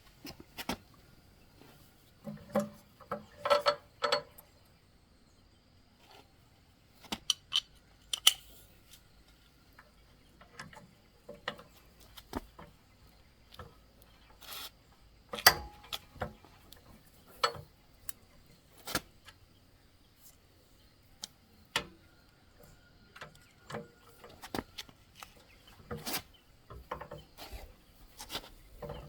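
Irregular metallic clinks, taps and scrapes of hand tools and small metal parts being handled.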